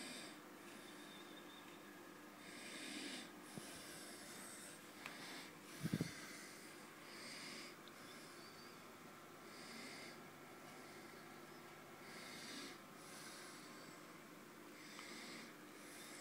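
Faint breathing close to the microphone, a soft hissy breath every two seconds or so, over a faint steady hum. A short low knock about six seconds in.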